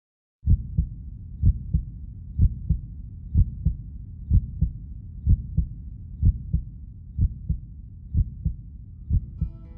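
A heartbeat, deep lub-dub pairs about once a second over a low rumble. Acoustic guitar music comes in near the end.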